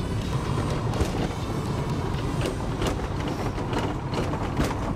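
Renault car driving on a rough dirt track, heard from inside the cabin, its engine running on water-contaminated oil: a steady rumble of engine and tyres with irregular knocks and rattles, with background music over it.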